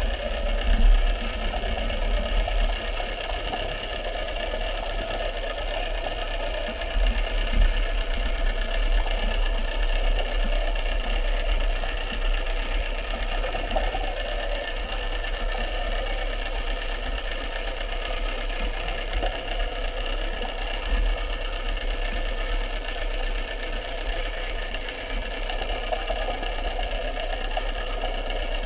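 Steady mechanical whirring hum of a small motor over a low rumble, running without a break and at an even level.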